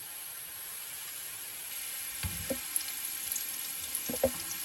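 Drops of gram-flour boondi batter frying in hot oil in an aluminium kadai: a steady sizzle with scattered crackles. A few light knocks of metal utensils come about two seconds in and again near the end.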